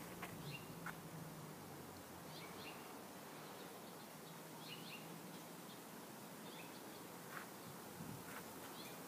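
Small birds chirping faintly: short high notes in little groups about every two seconds over a steady outdoor hiss.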